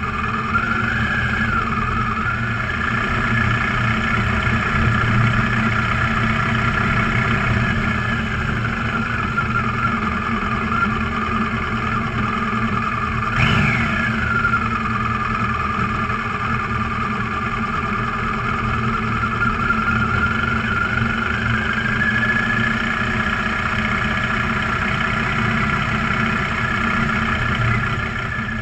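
A vehicle's engine running steadily while it drives slowly, its pitch drifting up and down with speed. About halfway through comes one short, sharp sound whose pitch falls quickly.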